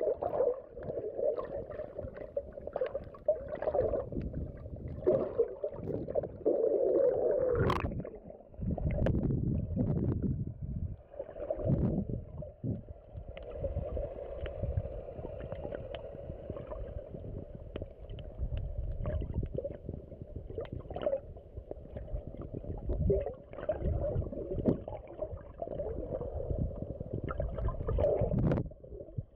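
Muffled underwater sound picked up by a submerged phone: a steady low rumble and gurgling of water, with scattered clicks and knocks.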